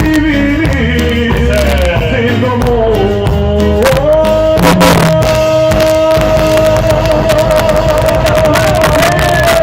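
Live band music with singing, and a steady beat underneath. About four seconds in, one long wavering note begins and is held for roughly five seconds.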